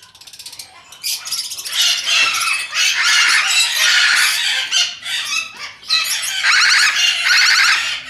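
Parrot giving loud, harsh screeching calls in long raspy runs, starting about a second in, easing briefly around five seconds in, then resuming.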